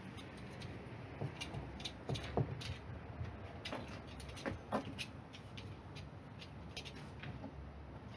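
Scattered light knocks, scrapes and rustles of rock wool insulation being handled and packed into a plywood box around a ventilation fan, busiest in the first half.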